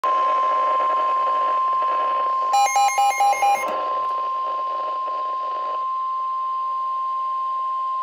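Weather alert radio sounding the NOAA Weather Radio warning alarm tone, one steady high tone, through its small speaker. A bit over two seconds in, a quick run of about six louder electronic beeps cuts across it. The tone signals that a warning broadcast, here a tornado warning, is about to follow.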